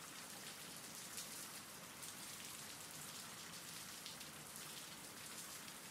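Faint, steady rain: an even hiss with scattered small drop ticks.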